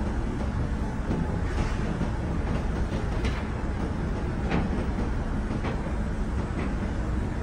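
Grove TM1500 truck crane's diesel engine running steadily with a low rumble, with a few faint clicks scattered through it.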